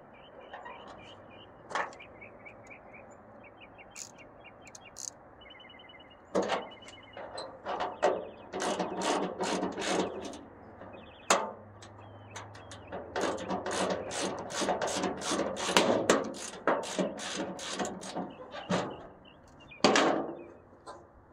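Socket ratchet clicking in two long runs of rapid strokes, about four or five clicks a second, as a tailgate latch bolt is loosened and turned. There is a louder single knock near the end.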